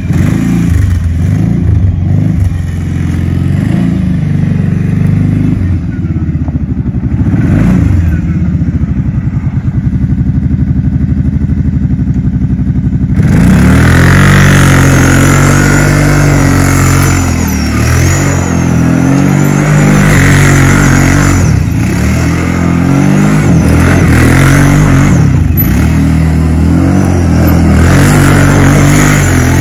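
650 quad bike engine revving up and down as it spins tight circles on loose dirt. About halfway through, the sound turns suddenly louder and brighter, with more gritty noise over the engine.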